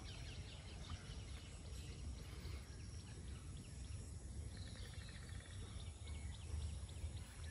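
Quiet outdoor pond-side ambience: a steady low rumble with faint, scattered bird chirps.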